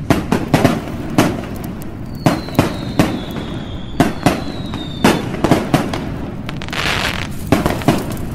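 Fireworks sound effect: a string of sharp bangs and crackles, with a high whistle falling slowly in pitch from about two seconds in until about five seconds in.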